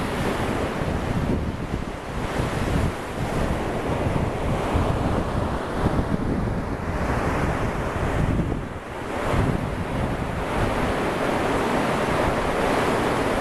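Ocean surf breaking and washing up a sandy beach, a steady wash of noise that swells and eases as waves come in. Wind buffets the microphone throughout.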